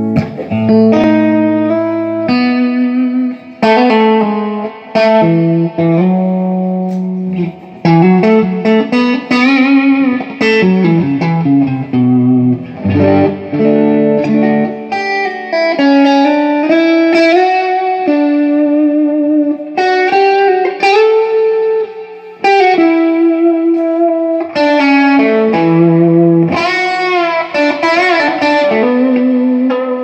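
Electric guitar played through a Line 6 Flextone III XL 2x12 combo amp, in a sound test after the amp's pots were desoldered, cleaned and resoldered to cure its dropping volume. Melodic phrases of sustained notes with bends and vibrato, in short runs separated by brief gaps.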